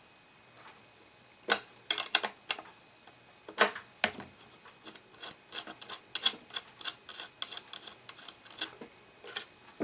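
Small metal clicks and ticks of a wrench working nuts off a pyrometer's hardware: a few sharp separate clicks, then a quick run of light, rapid ticks in the second half.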